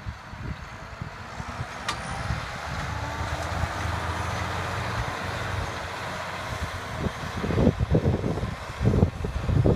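John Deere 7430 Premium tractor's six-cylinder diesel engine running steadily under load as it pulls a Köckerling Allrounder cultivator through the soil. Near the end, wind buffets the microphone with heavy low rumbles.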